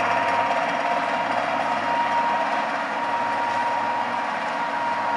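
Harrison 15x30 geared-head engine lathe running under power, a steady mechanical drone with a thin steady whine from the drive.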